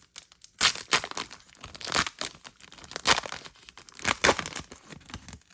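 Crinkling and tearing of a Pokémon card booster pack's foil wrapper being handled and ripped open by hand, in an irregular run of sharp crackles and rustles.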